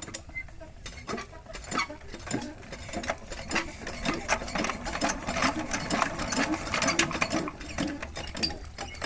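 Small motorised mechanism running with a rapid, uneven clatter of clicks and knocks, which grows busier about three seconds in.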